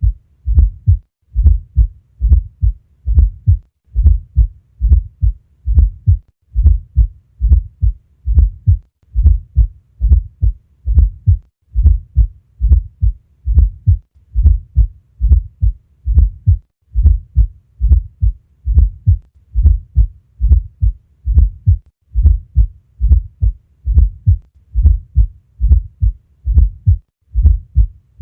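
Human heart sounds: low, dull thuds in close groups, repeating in a steady regular rhythm.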